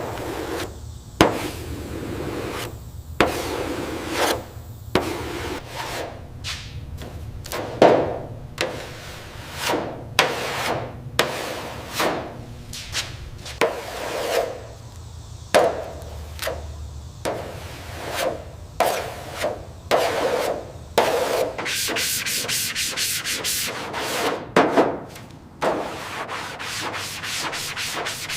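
Repeated abrasive rubbing strokes on a surface, uneven at first with sharp knocks between them, then quicker and more even from about three-quarters of the way in.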